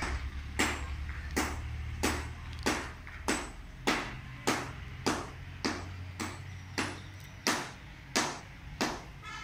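Hammer blows at a steady rhythm, about three strikes every two seconds, each with a short metallic ring, from building work on a construction site.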